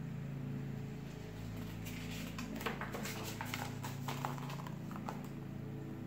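A hardcover picture book being handled and held up open: faint paper rustles and light taps, a few scattered through the middle, over a steady low hum.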